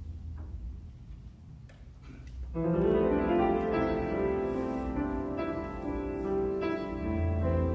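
Keyboard music begins about two and a half seconds in, with sustained, held chords; before that there is only low room sound with a few faint knocks.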